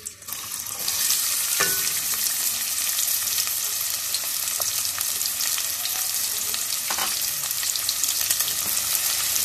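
Chopped onions dropped into hot ghee in a steel pot, sizzling and crackling steadily from the moment they go in. A couple of light knocks sound through the sizzle.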